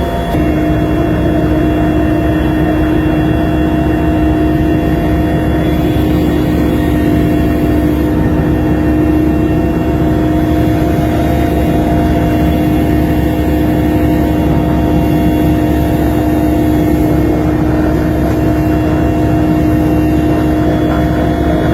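An engine running steadily at one constant speed, its hum holding a fixed pitch.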